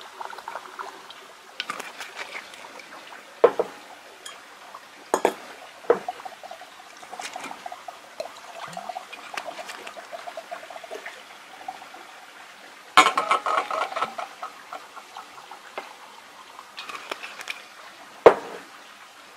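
Doppelkorn grain spirit being poured into a glass jar of grated quince, to cover the fruit. Scattered knocks and clinks of glass and utensils come through, with a louder clatter about thirteen seconds in.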